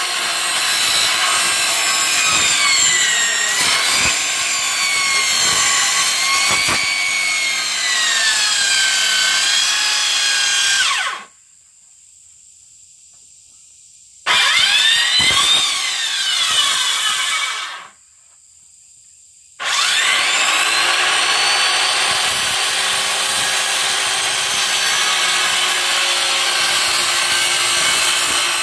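Handheld circular saw cutting along a long wooden board, its motor pitch dipping and rising as the blade takes the load. The cutting runs in three stretches, with two short pauses about 11 and 18 seconds in.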